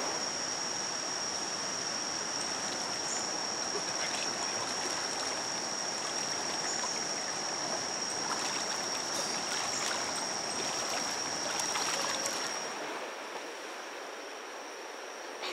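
Stream water rushing over shallow riffles, with a steady high-pitched insect drone above it that cuts off about thirteen seconds in.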